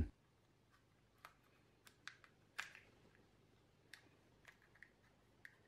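Faint, irregular small clicks and scrapes of a thin metal tool cutting into and prying at a party popper's casing, about eight in all, the loudest about halfway through.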